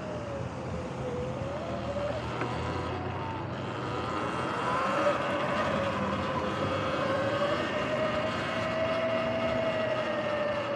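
Sur-Ron electric dirt bike's motor whining while riding, its pitch drifting slowly up and down with speed, over a steady rush of wind and tyre noise that grows a little louder about four seconds in.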